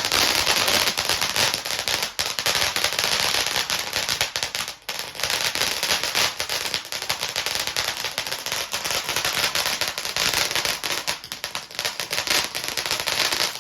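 A firework crackling: a dense, rapid stream of sharp pops, with a short lull about five seconds in.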